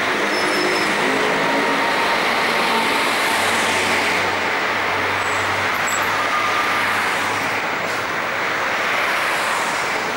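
City street traffic noise: a steady wash of passing cars, with a low engine hum that swells in about a third of the way through and fades out after about eight seconds.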